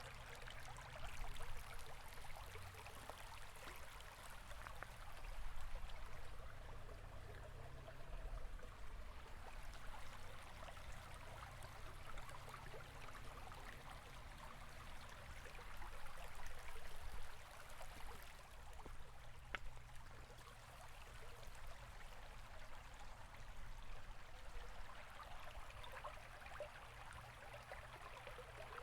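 River water flowing and babbling steadily over stones, with small splashing and trickling detail over a low rumble.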